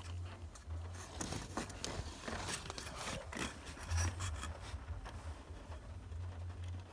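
A metal nail scraping and clicking in small, irregular strokes inside the ignition lock housing of a 1995 Toyota Corolla's steering column. It is probing for the key cylinder's release pin, with the key turned to ACC.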